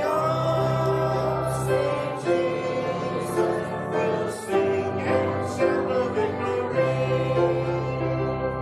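A church congregation singing a hymn together with instrumental accompaniment, in long held notes.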